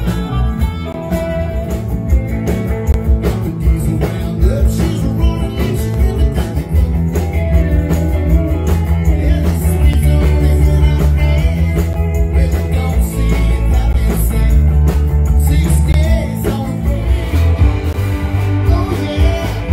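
Live rock band playing through a PA, with electric guitars over a drum kit keeping a steady beat.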